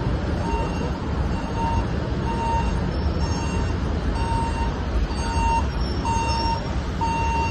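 Vehicle reversing alarm giving short single-pitch beeps about once a second over the low rumble of an idling engine.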